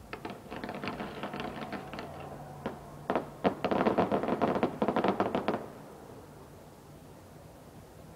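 Fireworks crackling in a rapid, irregular string of pops. A lighter spell is followed about three seconds in by a denser, louder volley, which stops short about halfway through.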